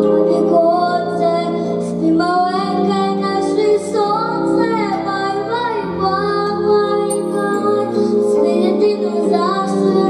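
A young girl singing a lullaby into a handheld microphone, her voice wavering on held notes over a soft instrumental accompaniment.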